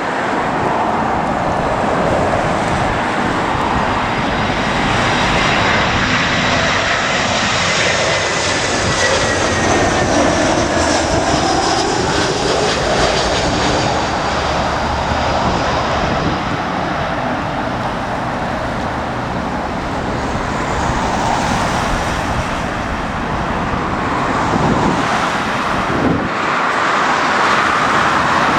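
Large jet airliner on approach passing low overhead, a loud, steady rushing of its engines. High whining tones slide slowly lower as it goes by.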